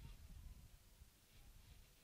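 Near silence: faint outdoor background with a low rumble.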